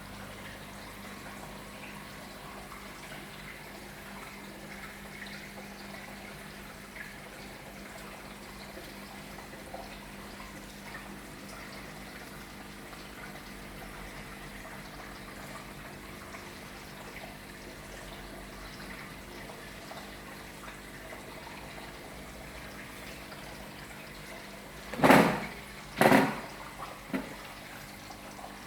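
Aquarium water running and trickling steadily, with a faint electrical hum from the tank equipment. Near the end come two short, loud knocks about a second apart, then a smaller one.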